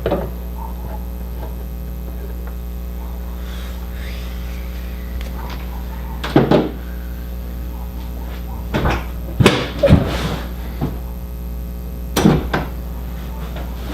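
Short knocks and clunks from handling the LED light and parts, in a few clusters about six, nine to ten and twelve seconds in, over a steady low hum.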